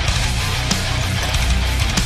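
Heavy rock music with electric guitar.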